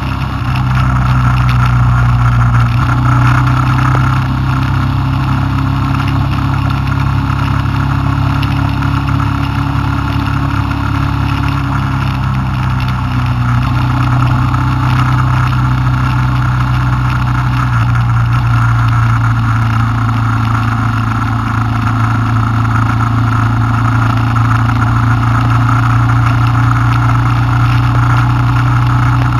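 Honda Transalp motorcycle engine running steadily at cruising speed, with wind and road noise. The engine note steps up slightly about three seconds in and drops back around twelve seconds.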